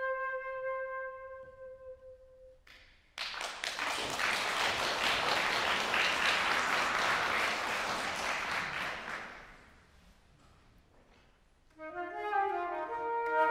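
A flute's long held note dies away, then an audience applauds for about six seconds. Near the end, two flutes start playing together.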